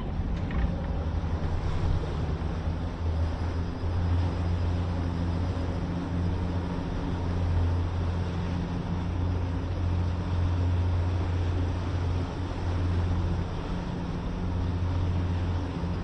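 Outboard motors of a center-console boat running steadily underway at cruising speed, a low engine drone over the rush of water and wind.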